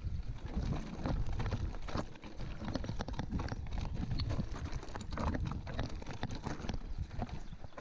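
Mountain bike rattling down a rocky trail: tyres crunching over loose stones, with frequent irregular knocks and clatter from the frame, chain and suspension under a steady low rumble.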